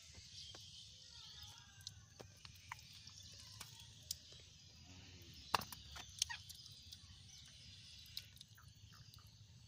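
Wet mud squelching and sloshing as hands dig through a shallow muddy pool and work a metal bowl into the mud, with scattered sharp wet slaps and clicks, the loudest about five and a half seconds in, over a steady high hiss.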